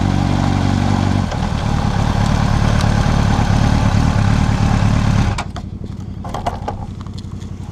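Sport motorcycle engine running as the bike rolls slowly, its pitch dropping about a second in as the throttle closes. About five seconds in the wind and road noise cut off and the engine goes on idling more quietly, with a few sharp clicks near the end.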